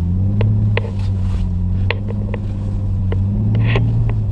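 Jeep Wrangler engine pulling steadily through deep snow, its revs rising slightly twice, with scattered sharp clicks and knocks over the top.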